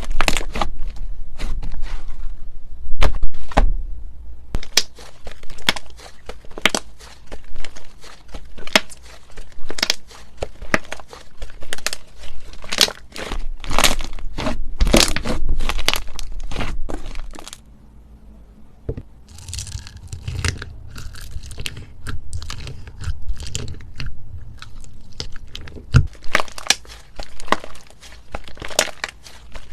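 Slime being squeezed and pressed by hand, making rapid crunchy clicks and crackling pops. The sound drops to a quieter, softer crackle a little past halfway.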